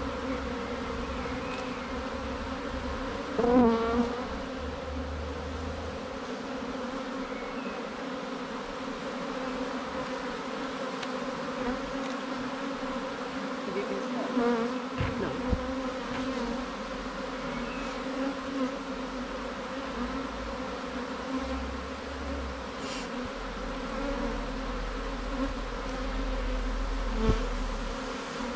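A honeybee swarm humming steadily, many wingbeats blending into one drone. About three and a half seconds in, a louder buzz bends down and up in pitch, with smaller ones later.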